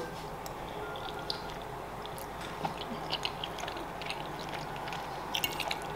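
Close-miked chewing of a mouthful of soft, creamy pasta: quiet wet mouth sounds with small scattered clicks, a few more of them near the end.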